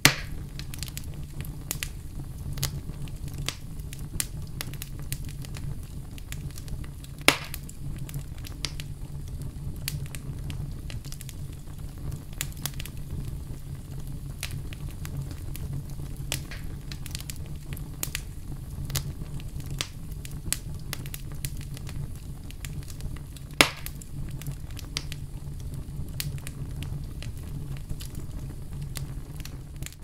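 Fireplace fire crackling: a steady low rumble of flames under constant small crackles, with three louder pops, one right at the start, one about seven seconds in and one about twenty-four seconds in.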